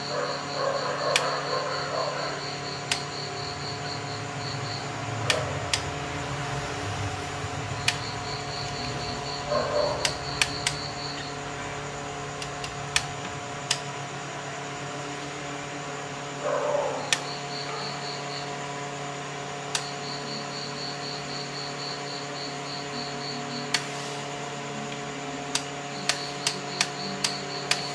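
Scattered sharp clicks and taps of small plastic and metal parts as a switched power outlet is reassembled after its broken switch was replaced, over a steady hum. A high, evenly pulsed chirping comes and goes in the background.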